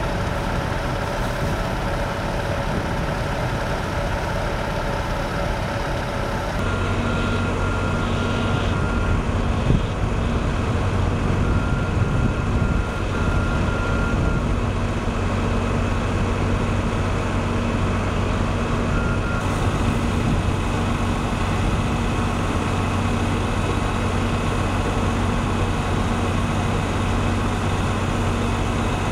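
Heavy truck engine idling steadily, a constant low hum.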